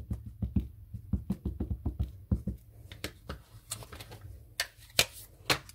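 Distress ink pad dabbed quickly and repeatedly onto a red rubber brick-wall stamp, about four dull taps a second, stopping about two and a half seconds in. A few sharper clicks and knocks follow, the loudest about five seconds in.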